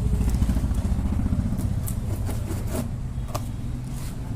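A motor vehicle engine running close by with a steady low throb, loudest at the start and easing off a little, with a few faint light clicks over it.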